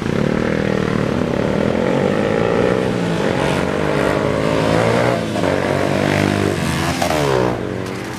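Road traffic pulling away and passing close by: a van, a motorcycle and cars accelerating, their engine notes rising in pitch, with another rise near the end as a car goes past.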